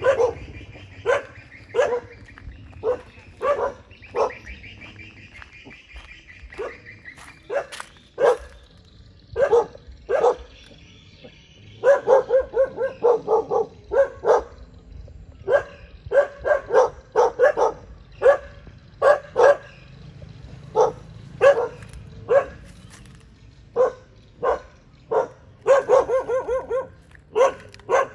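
Dogs barking at strangers to guard their house: short, sharp barks, sometimes one at a time and sometimes in quick runs, with brief pauses between.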